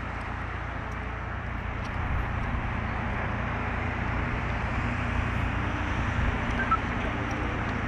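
Vehicle running close by: a steady low rumble of engine and road noise that grows a little louder about two seconds in.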